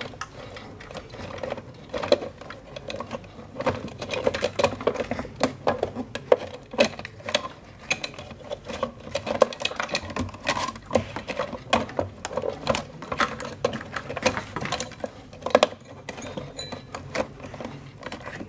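Plastic wiring-harness connectors and cables being handled and fitted around a refrigerator control board in its plastic housing: irregular light clicks, taps and rattles of plastic.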